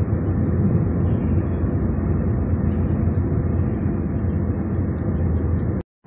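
Steady road and engine noise inside a car cabin at highway speed, a low rumble. It cuts out for a moment near the end.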